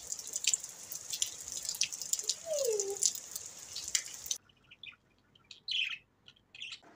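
Heavy rain falling and splashing on a wet concrete rooftop, with a short falling tone near the middle. About four seconds in the rain cuts off, and budgerigars give a few short high chirps.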